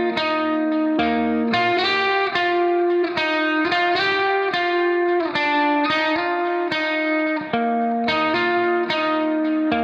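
Background music: a plucked guitar melody, each note changing about every half second in a repeating pattern.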